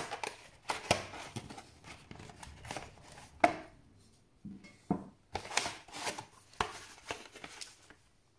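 Hands fitting a Samsung EVO SSD into a laptop drive frame: a series of sharp clicks and knocks with some rubbing between them, the loudest knock about three and a half seconds in.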